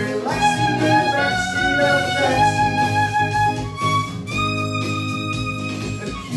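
Electric violin playing a sustained, gliding melody over electric guitar chords.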